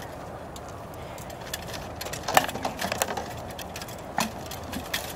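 Scattered clinks and sharp knocks of armour, shields and rattan swords as two armoured SCA fighters move and spar, the loudest knock about two and a half seconds in.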